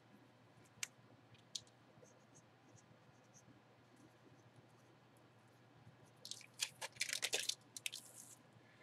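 Faint off-camera handling noises: two light clicks within the first two seconds, then about two seconds of irregular scratching and rustling, like packaging being handled, starting about six seconds in.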